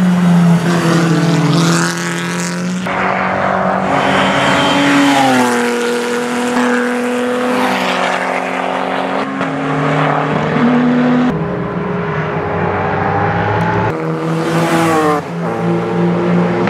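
Racing car engines at high revs, several cars passing, the pitch stepping up and down through gear changes.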